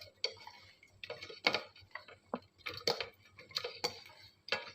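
Irregular light knocks and clicks, about eight of them, from kitchen utensils and containers being handled, some with a short ring.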